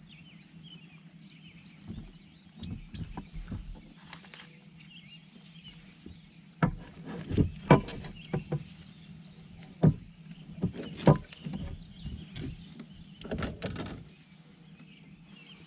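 Knocks and clunks of gear being handled on a plastic fishing kayak, irregular and loudest in the middle, over a steady low hum.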